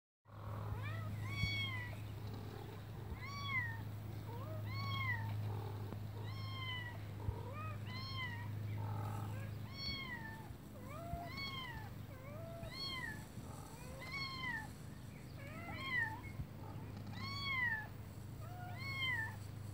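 A kitten meowing over and over, about once a second: short calls that rise and fall in pitch. These are the distress cries of a kitten clinging to a tree trunk, waiting to be rescued.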